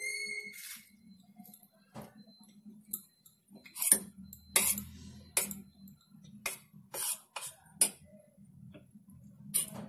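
Steel spoon clinking against a stainless-steel bowl of batter: irregular sharp clinks about once a second, the first ringing briefly.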